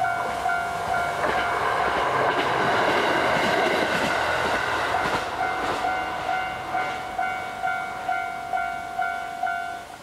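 Japanese level-crossing alarm ringing its electronic two-tone ding about twice a second. A JR Hokkaido KiHa 150 diesel railcar runs over the crossing from about a second in to about five and a half seconds in, its rumble and wheel noise over the bells. The alarm stops near the end as the crossing clears.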